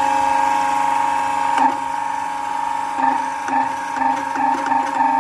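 The electric motor and pump of a hydraulic press unit run with a steady whine. About a second and a half in there is a clunk, and from about three seconds there is a run of short, uneven surges, two or three a second, as the control valve is worked to release the pressure on the heated press mould.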